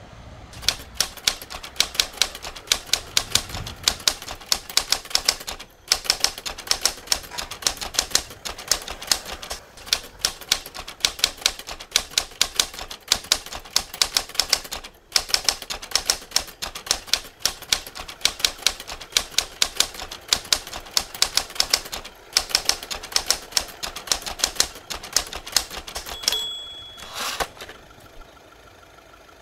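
Typewriter sound effect: fast runs of keys clacking, broken by a few brief pauses. Near the end a single bell-like ring sounds, then a short rasp like the carriage being returned.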